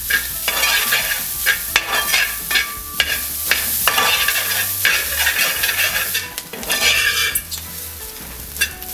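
Grated coconut sizzling as it roasts in coconut oil in a steel pan, turning brown for a roasted-coconut curry paste. A metal spoon scrapes across the pan in repeated strokes, about one or two a second, as it is stirred without stopping.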